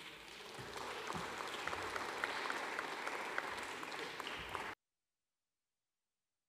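Audience applauding, building over the first second and then steady, cut off abruptly a little under five seconds in.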